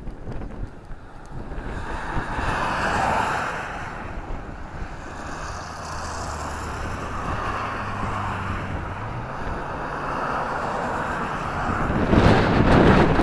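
Road traffic passing on the highway, with a low engine hum through the middle, and wind rushing over the microphone, which buffets loudest near the end.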